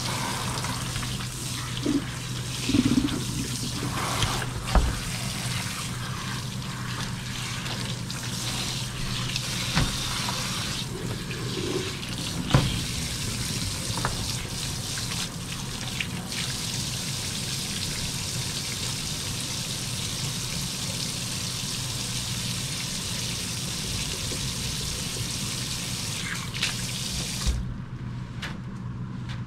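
Tap water running steadily into a stainless steel sink and over rockfish being rinsed by gloved hands, with a few sharp knocks as the fish are handled in a plastic basket. The tap is shut off near the end.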